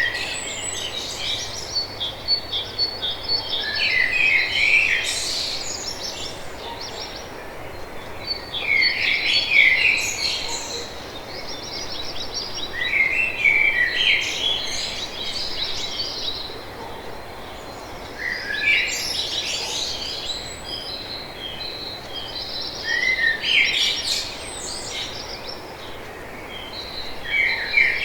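A songbird singing a short, busy phrase of high chirps and trills, repeated about every four to five seconds over a steady hiss of outdoor background noise.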